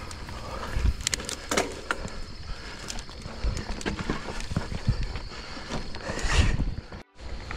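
Mountain bike climbing a stony dirt trail: tyres crunching over small rocks while the bike rattles and knocks irregularly. The sound drops out for a split second near the end.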